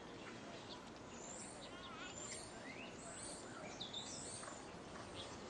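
Small birds chirping and calling, many short rising and falling chirps, over a faint steady outdoor hiss.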